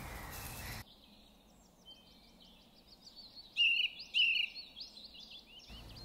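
Wild songbirds singing: a string of short, high chirping phrases, the two loudest a little past halfway.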